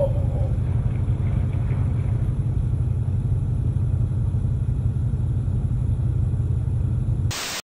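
Steady low vehicle rumble, with no distinct knocks or horns.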